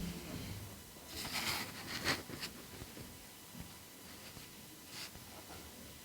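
Brief handling noises from hands at work in an unboxing: a scratchy rustle with a sharp click about two seconds in, then a faint tick near the end.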